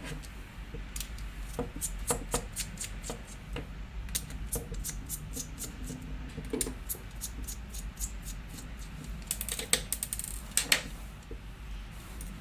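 Scattered clicks and light taps of lightsaber hilt parts being handled and taken apart by hand, with a quick run of clicks about nine to ten seconds in.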